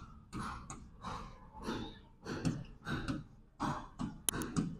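Writing on a board by hand: a run of short scratchy strokes, with a few sharp taps near the end.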